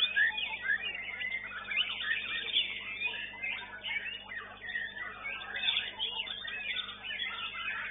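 White-rumped shamas (murai batu) singing in a contest: a continuous, dense run of quick whistles, trills and chirps, several birds overlapping.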